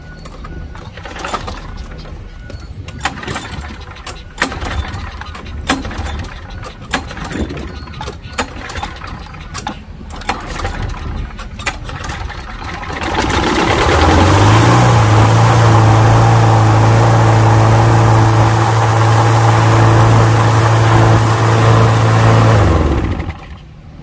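Walk-behind lawn mower engine, freshly sprayed with carburettor cleaner, after several seconds of knocking and clatter, catches about halfway through and runs steadily at a fast, even speed for about nine seconds, then cuts off suddenly.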